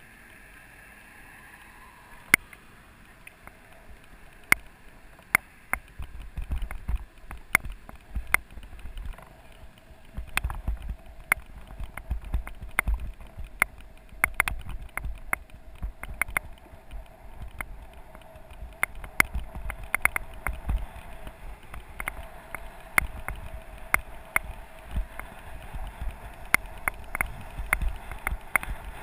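Mountain bike in motion over pavement: irregular sharp clicks and rattles as the bike jolts over the road surface, with a low rumble that sets in about six seconds in.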